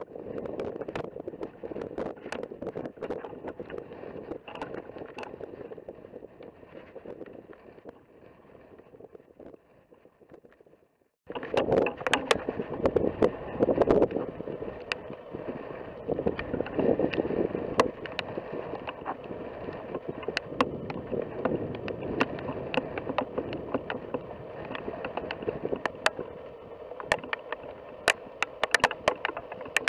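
Wind blowing on the microphone outdoors, a steady rushing noise broken by frequent sharp clicks. It fades almost to silence about ten seconds in, then cuts back in suddenly and louder.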